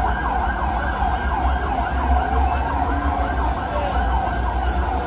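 Sirens on a convoy of armoured vehicles wailing together, many rising and falling sweeps overlapping, over a steady low rumble.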